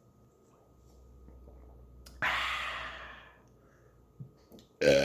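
A man exhales loudly with a breathy sigh about two seconds in, fading over a second. Near the end a loud, deep burp begins.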